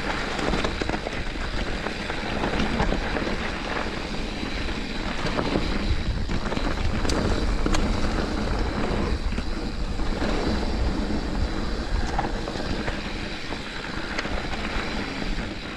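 Wind rushing over the microphone and tyres rolling on a loose dirt trail as a mountain bike descends at speed, with scattered rattles and knocks from the bike over rough ground.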